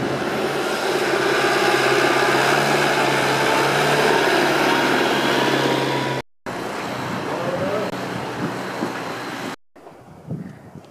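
Road traffic on a slushy, snow-covered street: a vehicle engine running steadily over road noise. The sound cuts out abruptly twice, and after the second cut, near the end, it is much quieter.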